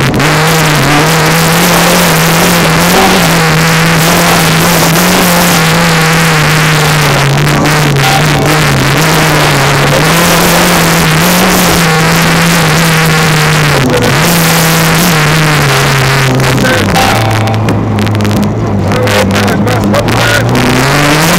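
Rally car engine running hard, heard from inside the cabin, over a steady wash of tyre and gravel noise on a forest stage. The engine note holds fairly level, drops about two-thirds of the way through and again shortly after as the car slows, then climbs again at the very end.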